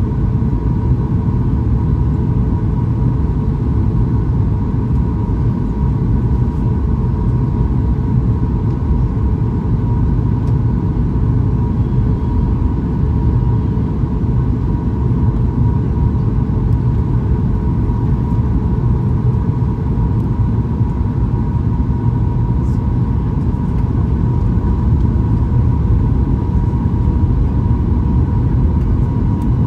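Steady cabin noise inside a Boeing 737 MAX 8 airliner: a loud, even rumble of its CFM LEAP-1B engines and airflow, with a steady hum on top. A lower hum fades out about two-thirds of the way through.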